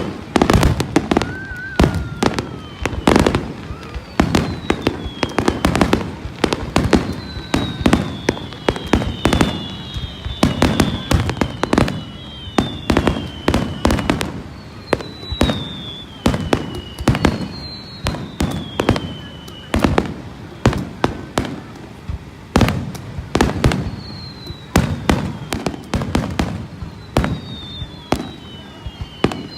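Aerial fireworks display: dense, rapid shell bursts, several a second throughout, mixed with repeated short falling whistles.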